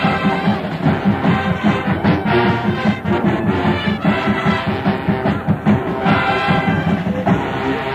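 High school marching band playing, brass over a steady drum beat, recorded on a cassette deck in the stands.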